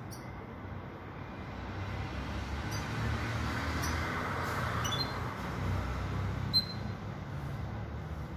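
Low rumble of passing road traffic, swelling toward the middle and easing off. A few short, high chirps come from a caged pintagol (goldfinch × canary hybrid), one sharper chirp about six and a half seconds in.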